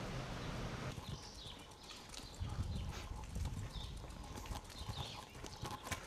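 Wind rushing over the bike-mounted camera's microphone, which gives way about a second in to irregular clicks and knocks from the bicycle rolling slowly along, with birds chirping.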